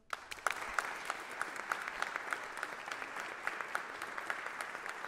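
Audience applauding, breaking out suddenly and then holding steady.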